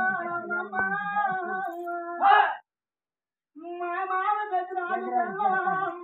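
Singing in long held, wavering notes. About two seconds in, a short, loud animal-like cry breaks in. Then the sound cuts out completely for about a second before the singing resumes.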